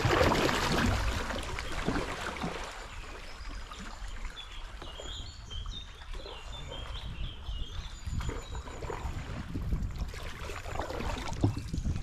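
Water splashing and lapping against a canoe hull as it is paddled along the river, loudest in the first couple of seconds and again near the end. A bird sings in short chirping phrases in the middle.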